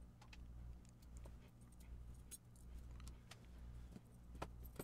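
Faint, scattered clicks and light metal clinks of small mesh watch-cleaning baskets being handled and set into a larger mesh basket, with a couple of sharper clinks near the end. A low steady hum runs underneath.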